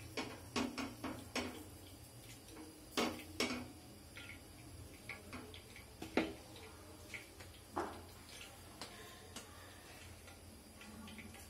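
Scattered light taps and knocks of hands patting potato-and-cornflour tikki dough flat on a tawa griddle and shaping the next patty, a cluster of them at the start and a few single ones after, over a steady low hum.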